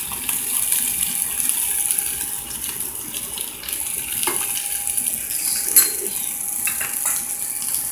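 Chicken pieces sizzling in a nonstick electric skillet, a steady high hiss with a thin steady tone beneath. A few sharp clicks of a utensil against the pan, the loudest near the middle.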